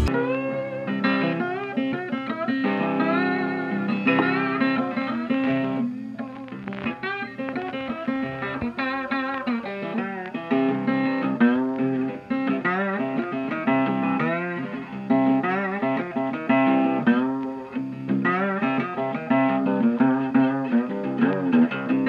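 Background music: a plucked guitar playing a melody of short notes, many of them bent or wavering in pitch.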